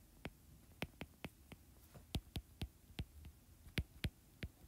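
Faint, irregular clicks of a stylus tip tapping on a tablet's glass screen during handwriting, about a dozen of them.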